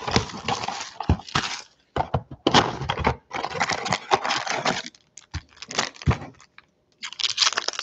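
Cardboard trading-card box being torn open by hand: a run of rustling, cracking and tearing sounds in short spells with brief pauses, the longest pause near the end.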